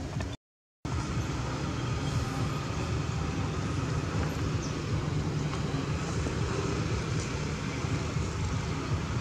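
Steady low background rumble, like distant traffic, with a brief dropout to total silence about half a second in.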